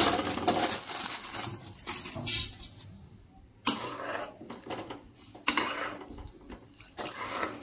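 A metal spatula scraping and clanking against a kadai while lumps of jaggery are stirred into water, with three sharp knocks a couple of seconds apart in the second half. A plastic bag rustles briefly at the start as the last of the jaggery is emptied in.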